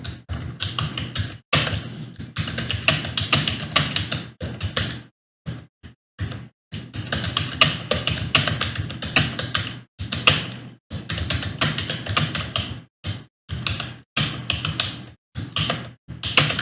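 Computer keyboard being touch-typed in a timed typing test, at about 50 words per minute: rapid runs of keystroke clicks broken by brief pauses.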